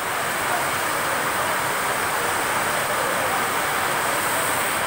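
Heavy monsoon rain falling steadily on a concrete railway platform and tracks, an even, unbroken hiss.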